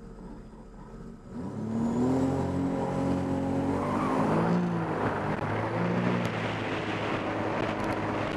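Personal watercraft engine opening up to full throttle about a second and a half in, its pitch climbing as it accelerates hard, then running flat out over a loud rush of water spray.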